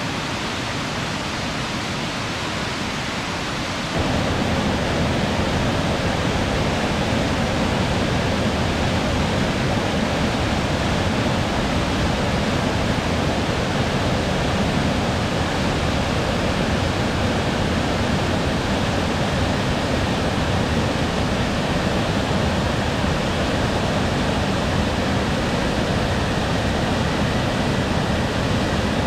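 Waterfall rushing, a steady, dense roar of falling water that steps louder and deeper about four seconds in.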